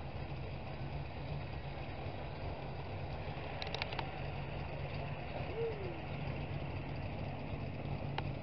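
Heavy pulling-vehicle engine idling with a steady low rumble, with a few brief clicks near the middle.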